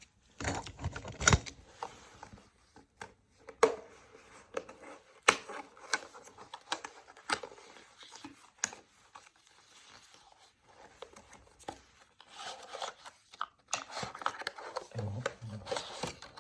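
A sharp blade cutting open a product box: irregular scraping, cutting and tearing of the packaging, with sharp clicks and handling noise. The rustling and tearing grow busier in the last few seconds.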